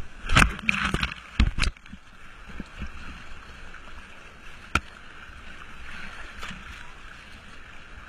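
Fast river water rushing and splashing right at the microphone. There are several loud splashes and knocks in the first two seconds, then a steady hiss of flowing water with one sharp click a little under five seconds in.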